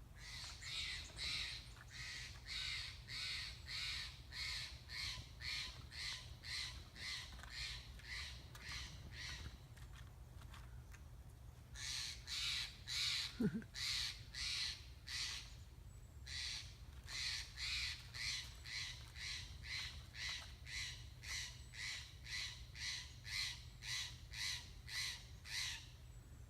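A bird calling harshly over and over, about two to three calls a second, in long unbroken runs with two short pauses.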